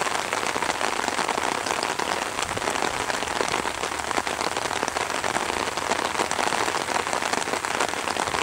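Steady rain with dense, close drops pattering on an umbrella held just overhead.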